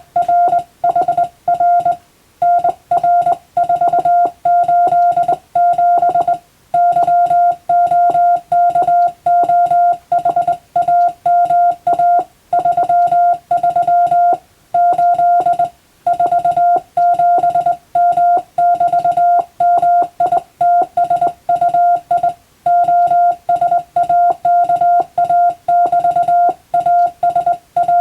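Morse code (CW) tone at about 700 Hz, keyed on and off in a steady stream of dots and dashes with short gaps between characters and a few longer pauses between words.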